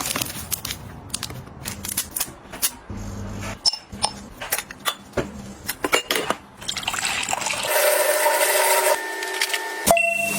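Light clicks and clinks of household items being handled, then liquid running into a container for about three seconds near the end.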